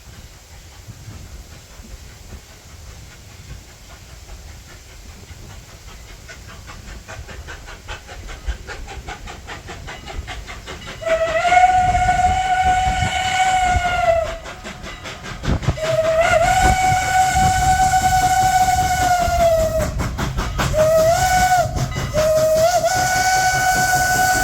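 Pennsylvania Railroad 'Banshee' steam whistle on a 2-6-0 Mogul steam locomotive, blowing two long blasts, a short one and a long one, the grade-crossing signal. Each blast sags slightly in pitch as it closes off. Under it is the locomotive's exhaust chuffing in a steady rhythm, growing louder as it approaches.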